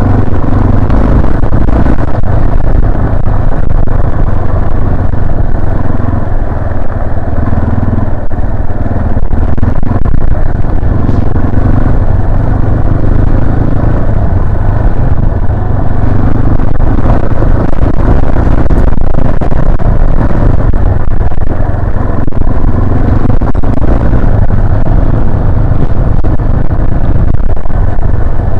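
Yamaha Serow 250's air-cooled single-cylinder engine running steadily at an easy riding pace, with faint scattered knocks over it.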